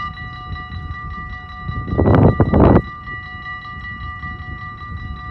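Railway level-crossing warning bell ringing rapidly and steadily, the sign that the crossing is closed for an approaching train. About two seconds in, a loud rushing burst lasting under a second covers it.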